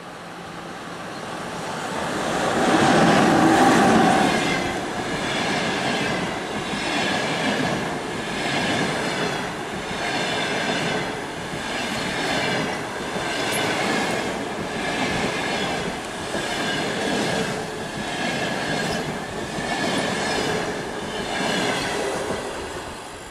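EP2K electric locomotive running through at speed, loudest about three seconds in as it goes by. Its passenger coaches follow, their wheels clacking over the rail joints in a steady beat about once a second.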